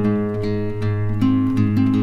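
Background music: plucked acoustic guitar notes over held low bass notes.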